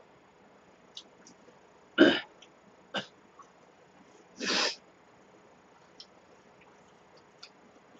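Someone eating cold acorn-jelly soup (muksabal) from a metal bowl held at the mouth. A short loud slurp comes about two seconds in and a longer slurp about four and a half seconds in, with a click in between and faint clicks of chopsticks against the bowl.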